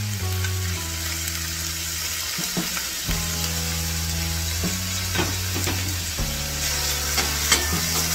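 Chopped onions frying in oil in a stainless steel frying pan, a steady sizzle. A wooden spoon stirring them knocks and scrapes on the pan a few times in the second half.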